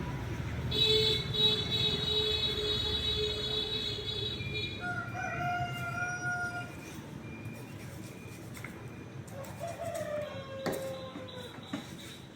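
Rooster-like crowing: one long drawn-out call of about three and a half seconds, then a shorter, higher call, and a falling call near the end.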